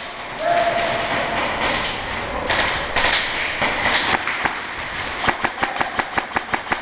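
Airsoft guns firing in an indoor close-quarters game. A louder noisy clatter comes in the middle, and a regular string of sharp shots at about seven a second fills the last second and a half.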